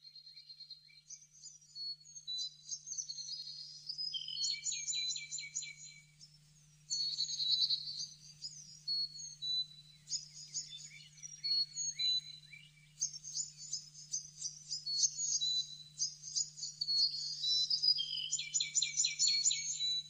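A songbird singing a rapid, varied song of high chirps and fast trills, in phrases a few seconds long with short pauses between them. A faint steady low hum runs underneath.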